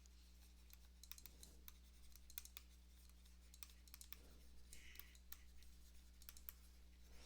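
Near silence: a low steady electrical hum with faint, irregular small clicks scattered throughout.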